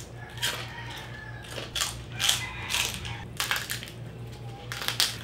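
Crunching of crispy roast-pig (lechon) skin as several people bite and chew it, a string of short, sharp crunches at uneven intervals.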